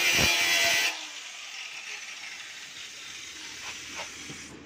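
Handheld angle grinder running loudly with a string of knocks, then cutting off suddenly about a second in. A quieter steady hiss remains, with two light taps near the end.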